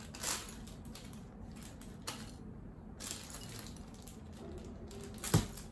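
Small plastic bag rustling and tiny plastic minifigure parts being handled, in a few short scratchy bursts, with one sharp click a little after five seconds in.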